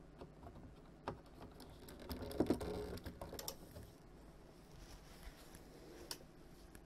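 Faint clicks and knocks of a plastic-cased bench frequency counter being handled and set down, with a louder clunk about two and a half seconds in.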